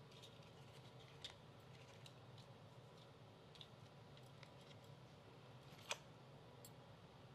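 Near silence: room tone with a few faint, sharp clicks, the clearest about a second in and about six seconds in.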